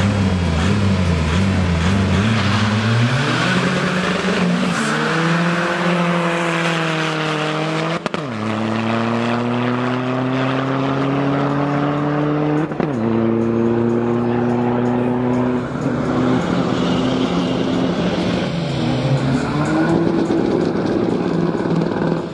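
Drag-race cars revving at the start line, then launching and accelerating hard down the strip, the engine pitch climbing through the gears with sharp upshifts about eight, thirteen and sixteen seconds in before the sound fades with distance.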